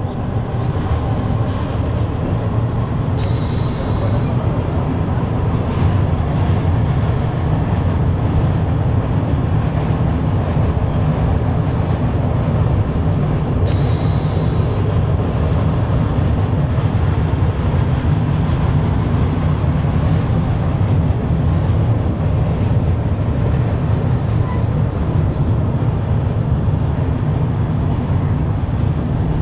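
Passenger train running along the track with a steady low rumble. Two brief high-pitched tones sound about ten seconds apart.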